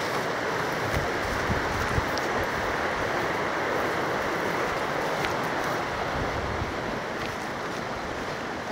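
Shallow rocky river rushing in whitewater over and around boulders: a steady rushing noise, with a few soft low thumps in the first two seconds.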